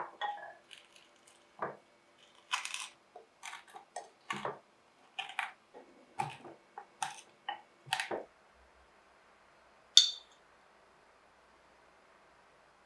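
Wooden honey dipper mashing sliced strawberries with sugar in a glass jug: a run of irregular soft knocks and squishes against the glass for about eight seconds. About ten seconds in comes a single sharp click.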